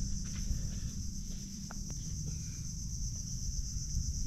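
Steady high-pitched drone of insects in shoreline trees, with a low rumble underneath and a couple of faint ticks a little before the middle.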